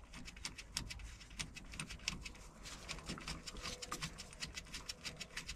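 Faint, irregular light clicks and taps of hands and tools working the bolts of a hydraulic hose flange, bolts that are too long to pull the flange tight.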